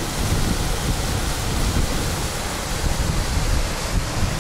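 Wind buffeting the microphone in an irregular low rumble, over a steady rushing hiss of running water.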